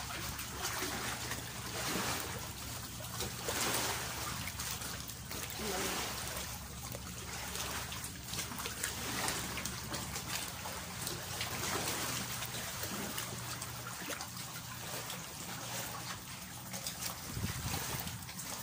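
Small sea waves lapping and sloshing against shoreline rocks, swelling and falling back every second or two.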